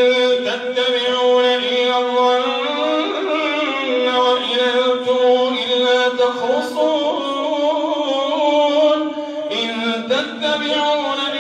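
A man's voice chanting Quranic recitation in long, drawn-out melodic notes with a slight waver: the imam's melodic tajweed recitation in prayer.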